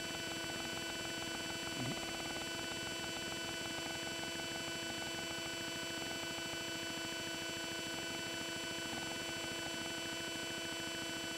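Steady electrical hum and whine, several fixed tones over a hiss, with one brief faint falling sound about two seconds in.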